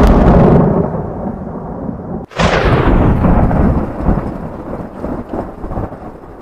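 Thunder: a rolling rumble dies down, then about two and a half seconds in a sharp crack of thunder breaks and rolls on as a low rumble that slowly fades.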